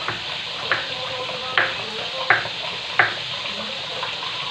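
Kitchen tap water running with a steady hiss, with four sharp knocks about a second apart.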